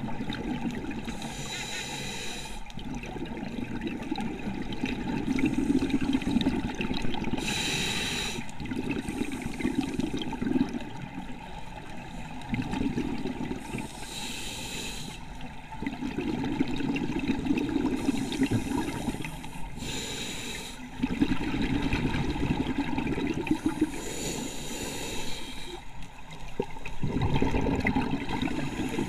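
Scuba diver breathing through a regulator underwater: a short hissing inhale about every five or six seconds, each followed by a longer gurgling rumble of exhaled bubbles.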